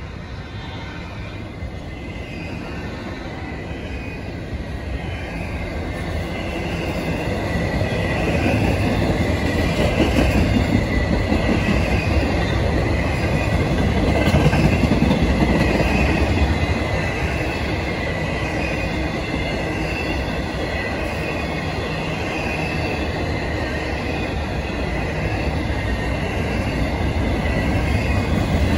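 Intermodal freight train cars rolling past: the steady rumble of steel wheels on rail grows louder over the first several seconds and again near the end. A thin, steady high squeal from the wheels runs over the rumble.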